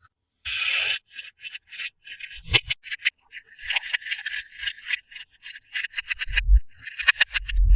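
Toy packaging being handled and opened by hand: an irregular run of short rustling, scratching and rubbing noises, with a longer rasp about half a second in and a few dull thumps later on.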